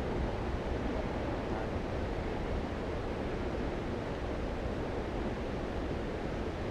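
Steady, even rushing noise outdoors, with a low rumble from wind buffeting the microphone.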